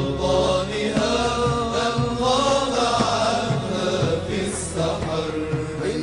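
Arabic madih, an Islamic devotional song, being chanted, the voices holding long notes that bend in pitch.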